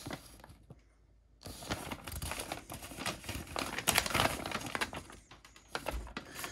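Paper instruction sheets rustling and crinkling as they are handled, unfolded and turned over. The rustling starts about a second and a half in, after a short quiet moment, and thins out near the end.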